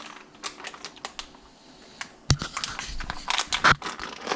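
A bag of fish-fry breading mix being handled and opened: crinkling, rustling and small clicks, with two sharp knocks about two seconds and three and a half seconds in.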